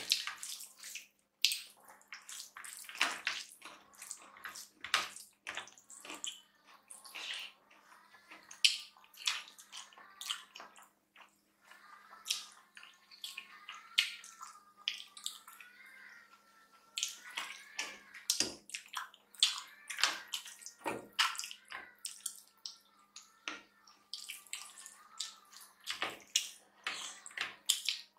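Close-up eating by hand: fingers squishing and mixing rice with dal and vegetable curry, with chewing and lip smacks. These come as many short, irregular wet clicks.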